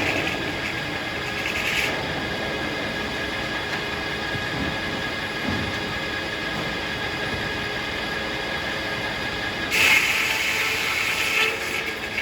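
Circular sawmill running with a steady mechanical drone from the spinning blade and its power unit. A louder, higher cutting noise from the blade sawing through a hackberry log dies away about two seconds in and starts again about ten seconds in, lasting to the end.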